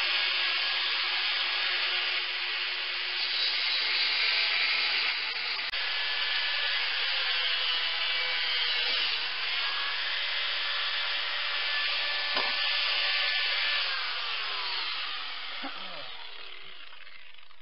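Electric angle grinder running against a mild steel blank, its motor whine steady under load. About fourteen seconds in it is switched off and the whine falls away as the disc spins down.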